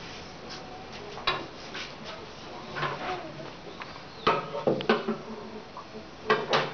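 Wooden sticks knocking against the plank walls of a wooden box: a scattering of sharp knocks, loudest in a cluster about four to five seconds in and again twice near the end.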